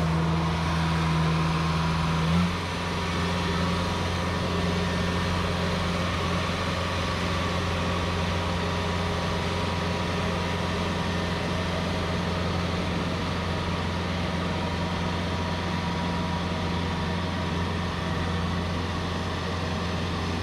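Rice combine harvester's engine running steadily with a deep, even hum. About two and a half seconds in it gives a short surge, then settles to a slightly lower, steady note.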